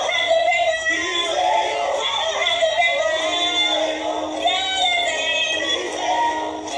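Voices singing a worship song with music under it, with one note held for about a second and a half midway.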